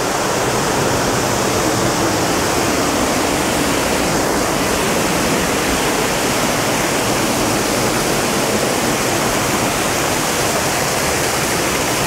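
Middle Falls of the Gooseberry River, heard up close: water pouring over the cliff edge in a steady, unbroken rush.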